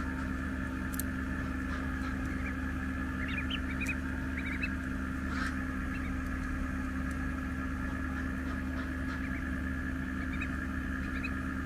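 A steady hum, with a few faint short duckling peeps about three to four seconds in and some soft clicks.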